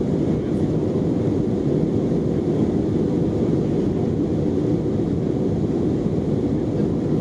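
Steady low roar of engine and airflow noise inside the passenger cabin of an Airbus A319 jet airliner, heard from a window seat.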